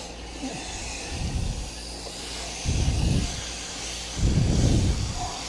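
Water spraying from a hose spray wand through the fins of an air conditioner's condenser coils, a steady hiss as the coils are rinsed clean of dust. Three louder, deeper rushes come through it about a second and a half apart.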